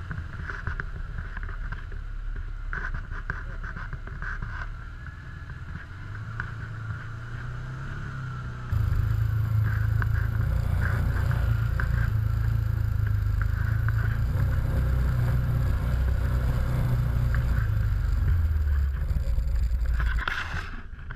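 A Can-Am Commander 1000 side-by-side's engine running as the machine wades through river water, then, about nine seconds in, an abrupt step to a louder steady engine and drivetrain rumble heard from inside the cab, which drops away just before the end.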